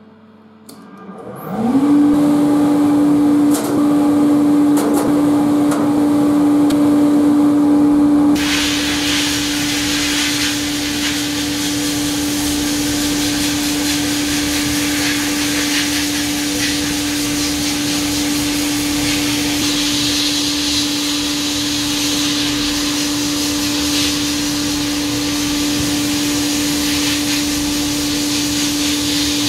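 Sandblasting cabinet's motor switched on, spinning up within a second or so to a steady hum. About eight seconds in the blast gun opens and a loud steady hiss of abrasive blasting starts, stripping rust from the rusty steel parts of a rebar cutter.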